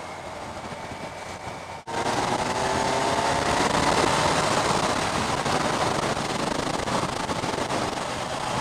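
Kawasaki Z1000SX inline-four sport-tourer at riding speed, heard through wind rush on a helmet-mounted microphone. The sound cuts out abruptly about two seconds in, then returns louder, with the engine note rising as the bike accelerates.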